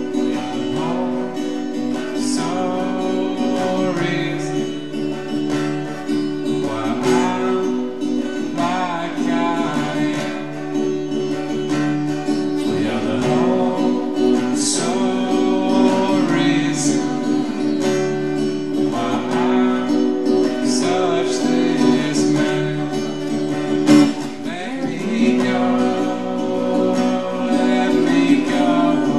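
Acoustic guitar strummed steadily in a live song, played through a PA.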